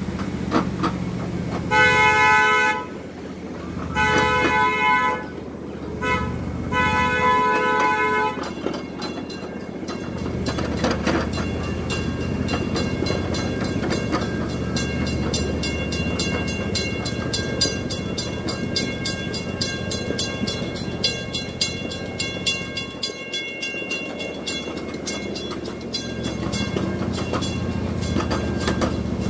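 Small park train's horn sounding three blasts within the first eight seconds, the last one longest. The train then gets under way over a low engine hum, its wheels clicking quickly and regularly over the rail joints.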